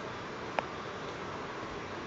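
Steady, even hiss of room noise in a large aircraft hangar, with one sharp click just over half a second in.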